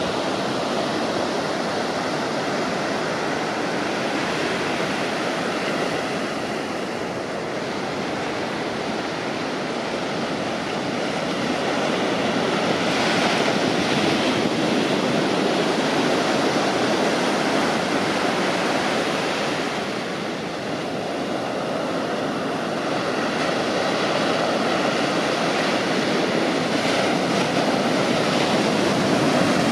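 Ocean surf breaking and washing up a sandy beach: a steady rushing of white water that swells louder around the middle and again near the end, easing off briefly in between.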